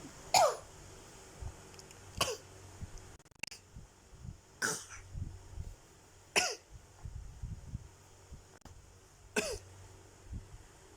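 Single sharp coughs repeated about five times, one to three seconds apart, each ending in a short downward slide in pitch.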